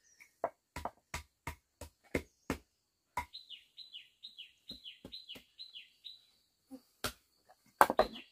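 Sharp knocks of flat stone slabs being laid and tapped into an earth floor, about three a second for the first three seconds, then fewer, with the loudest knock near the end. From about three seconds in, a bird repeats a short falling chirp about three times a second.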